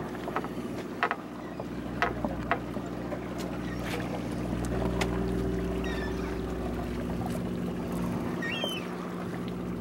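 Sportfishing boat's engine running with a steady hum, with a few sharp clicks about one and two seconds in.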